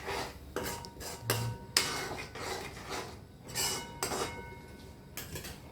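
Metal utensil scraping and clinking against a metal cooking pot in a series of short strokes, with a faint metallic ring after some of them.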